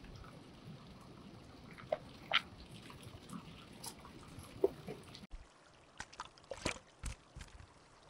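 Scattered short clicks and knocks over a faint, steady rush of running water from a mountain stream. The background changes abruptly about five seconds in.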